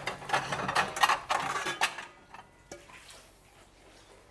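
Ceramic plates and bowls clinking and knocking together as a bowl is pulled out from a stack of crockery. The clatter lasts about two seconds, then it goes quieter, with one more small knock.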